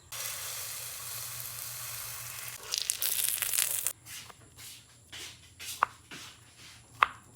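Broccoli and egg omelette frying in olive oil in a pan: a steady sizzle that grows louder just before three seconds in and cuts off abruptly about four seconds in. Faint scattered clicks and taps follow.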